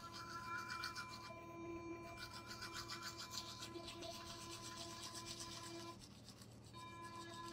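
Oclean Flow sonic electric toothbrush running in the mouth: a faint, steady buzz with bristles scrubbing against teeth. The buzz cuts out for about a second some six seconds in, then starts again.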